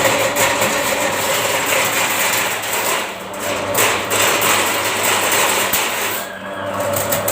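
Electric drain-cleaning machine running, its spinning cable rattling and knocking inside a clogged drain pipe over a steady motor hum.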